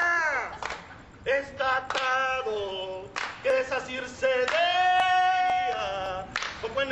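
Voices singing without words being picked out, in phrases with gliding and held notes, one long note held for about a second and a half, with a few sharp claps.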